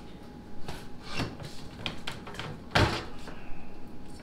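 Claw hammer knocking and prying at stacked plywood sheets, pulling the nail that held them together: a few sharp wooden knocks with some rubbing, the loudest nearly three seconds in.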